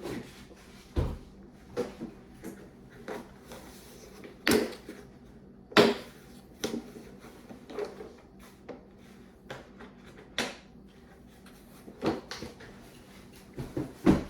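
Irregular clicks and knocks of a screwdriver and a PCIe SSD adapter card being handled, while a bolt on the card is worked at; the loudest knock comes about six seconds in.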